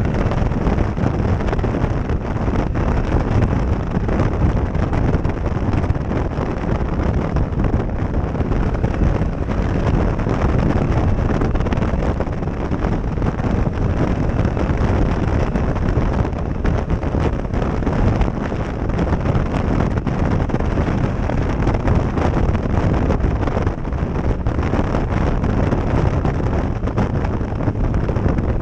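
Wind noise buffeting a helmet-mounted GoPro Session microphone on a moving motorcycle: a steady, heavy rush that buries the engine beneath it.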